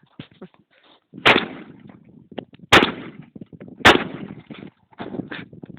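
Remington 1100 20-gauge semi-automatic shotgun fired three times, the shots about a second and a half and then about a second apart, each followed by a short fading tail.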